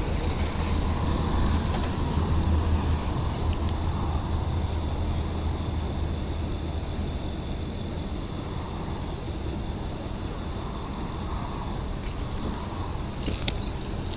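Low steady rumble of an idling vehicle engine, easing off after the middle, under high chirping in quick regular pulses; a couple of sharp clicks near the end.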